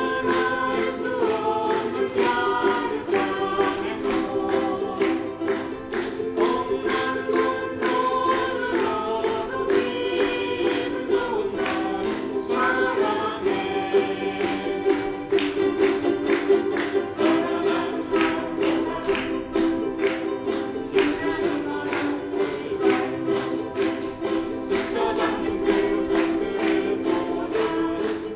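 Live ensemble music: a group singing a melody together over a steady, rhythmic strummed accompaniment.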